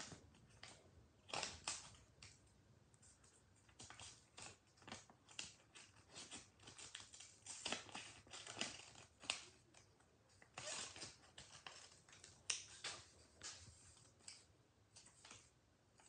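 Scissors snipping through folded white copy paper: a faint string of short, irregular cuts with a few longer strokes.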